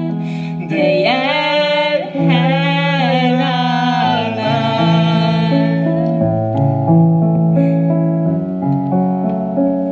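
Live stage-musical song: a voice singing with vibrato over piano chords. The singing ends about halfway through and the piano carries on.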